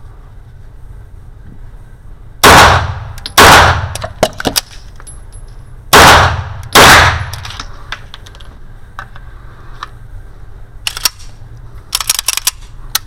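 Four shots from a 9x19 Bul 1911 single-stack pistol, in two pairs a little under a second apart, each with a ringing echo. Lighter metallic clicks and clacks follow near the end, the magazine being changed for a reload.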